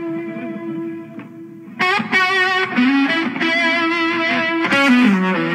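Isolated electric lead guitar track with delay. A held note gives way about two seconds in to a phrase of bent notes with wide vibrato, which slides down near the end.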